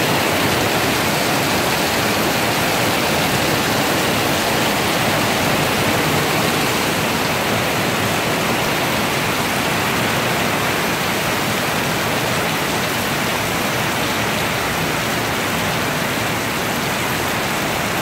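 Heavy tropical downpour: a loud, steady hiss of rain pouring down.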